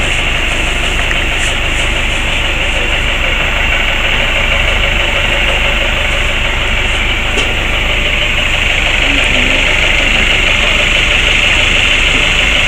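A vehicle engine idling steadily, a continuous rumble and hum that does not change.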